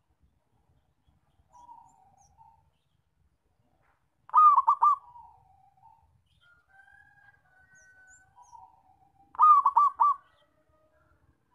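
Zebra dove (perkutut) singing: two loud phrases about five seconds apart, each a quick run of three or four clipped coos trailing into a softer rolling trill, with faint cooing between them.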